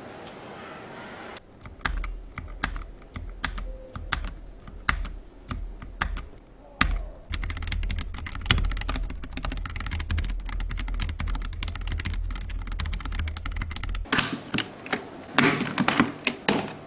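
Keyboard fitted with keycaps being typed on, its keys clacking. Separate keystrokes at first, then a fast continuous run of typing, then a few louder strokes near the end.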